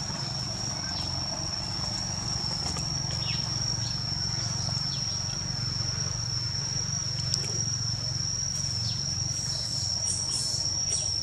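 Steady, unbroken high-pitched insect drone over a low steady rumble, with a few short, faint falling chirps scattered through.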